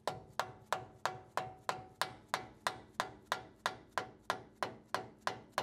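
Dead blow hammer tapping the steel lower control arm in a quick, steady rhythm of about three to four light blows a second, knocking the arm along to line its bolt holes up with the holes in the frame.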